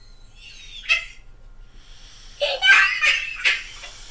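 A man laughing: one short burst about a second in, then several quick bursts of laughter a little past the middle.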